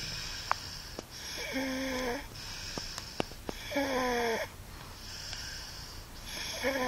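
Loud snoring from a sleeper: three snores about two and a half seconds apart, each with a steady buzzing tone, and hissing breaths between them. A few sharp clicks are also heard.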